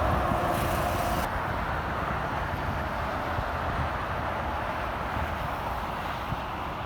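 Interstate highway traffic: a passing vehicle's engine and tyre noise fading steadily as it moves away, with a short hiss about half a second in.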